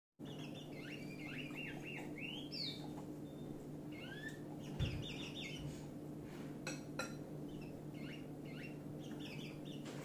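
African yellow white-eyes chirping in quick bursts of short, slurred high notes, repeated every second or two. A soft thump comes about five seconds in and two sharp clicks around seven seconds, over a steady low hum.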